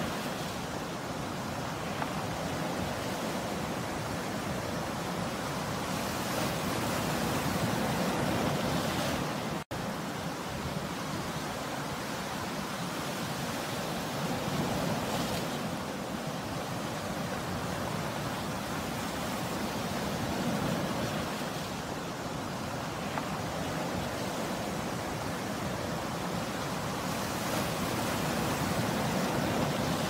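Sea surf breaking and washing over a rocky shore: a steady rush of waves that swells and eases every several seconds, with a momentary dropout about ten seconds in.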